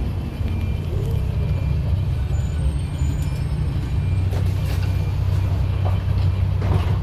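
Old 1999 Volvo bus with a Darwin body heard from inside the cabin while driving: a steady low engine drone that grows louder about four seconds in, with a couple of short hisses.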